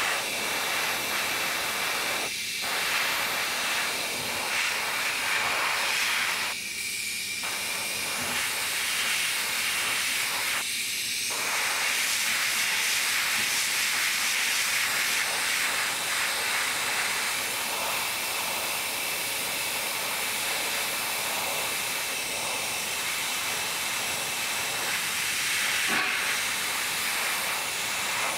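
Airbrush hissing steadily as it mists paint onto a figure, with three short breaks in the airflow in the first dozen seconds.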